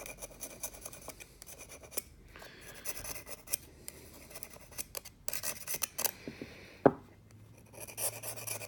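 Kitchen knife scraping tannin residue off the teeth of a hardened 440C stainless steel juicer cutter: quick, irregular metal-on-metal scrapes, with one sharp knock about seven seconds in.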